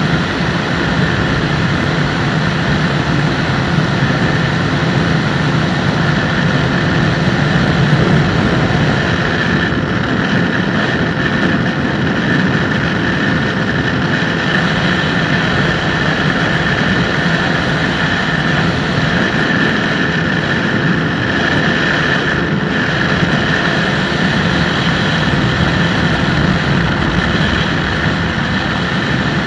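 Open-cockpit microlight aircraft's engine and propeller running steadily in cruise, mixed with wind rushing past the microphone.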